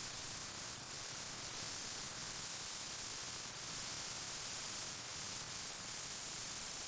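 Steady high hiss of a spray paint gun, running evenly without a break.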